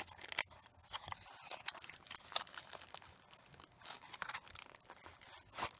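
Small retail package being opened by hand: irregular crinkling, crackling and tearing of the packaging, with a sharp snap about half a second in and another near the end.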